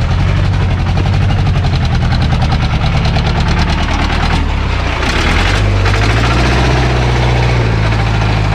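Off-road jeep engine running steadily as it climbs a rough, stepped hill track; its note rises slightly about five seconds in.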